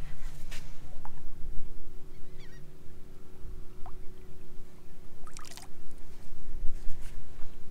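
Wind rumbling on the microphone over a steady low hum, with a few light clicks and taps.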